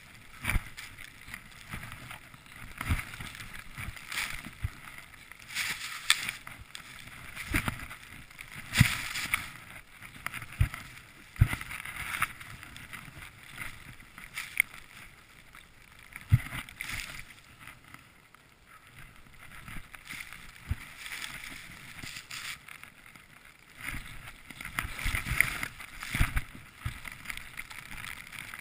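Skis hissing through deep powder snow in a run of turns, the swish swelling and fading every second or two, with short low thumps.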